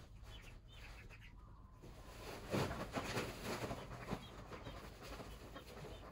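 Penned poultry giving faint, short calls. About two and a half seconds in comes a louder burst of scuffling and rustling that lasts under two seconds.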